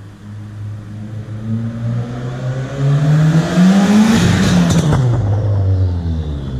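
Subaru WRX turbocharged flat-four with an aftermarket exhaust under hard throttle: the exhaust note climbs to a loud peak about four seconds in, with a few short crackles at the top, then falls away.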